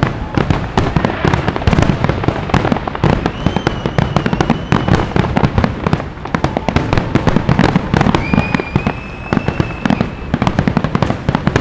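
Fireworks finale: a dense, unbroken barrage of aerial shell bursts, bangs and crackles overlapping with no gaps. Two long whistling tones sound over the bangs, one about three seconds in and another about eight seconds in, each rising slightly and holding for about two seconds.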